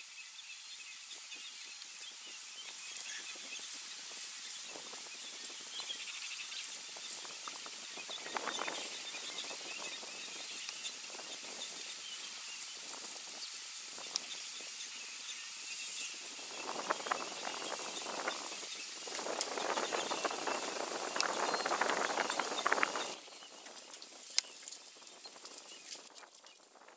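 Outdoor bush ambience: a steady, high-pitched insect drone, with bursts of rushing, rustling noise that grow stronger in the second half and cut off suddenly near the end.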